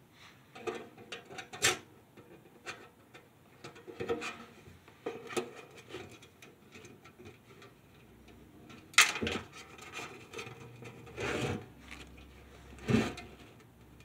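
Handling noise from a steel ammo-can tent stove and its circular vent parts on a wooden workbench: scattered metal clicks, taps and scrapes as the vent is fitted to the front of the stove. The loudest knock comes about 9 s in, a short scrape around 11 s, and another knock near the end.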